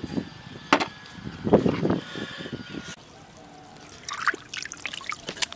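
Shallow water trickling and lapping among shoreline rocks, with a sharp click about a second in, a burst of low scuffing and knocking soon after, and a run of small crackling clicks near the end.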